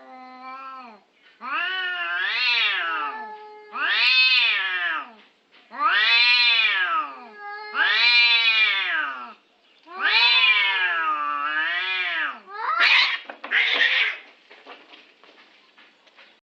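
A cat meowing over and over: about six long meows, each rising and then falling in pitch, then two harsher, rougher cries, trailing off into faint scratchy sounds near the end.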